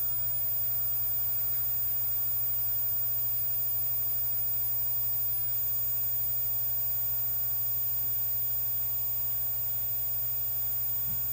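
Steady low electrical hum with a faint hiss from a TV playing a silent stretch of a VHS tape between segments.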